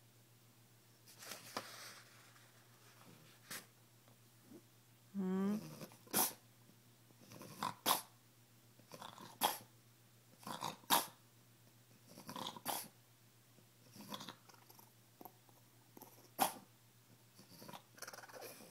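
French bulldog vocalizing to be let up onto a lap: one drawn-out, wavering whine about five seconds in, then a string of short huffs and grunts every second or two.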